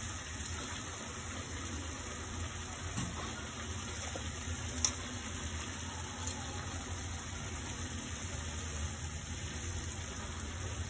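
Pan of small-fish and vegetable curry simmering on the stove: a steady low hum with faint bubbling, and a couple of light clicks about three and five seconds in.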